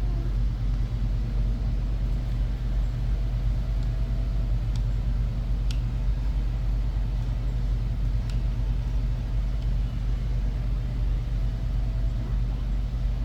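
A steady low background rumble, with a few faint light clicks.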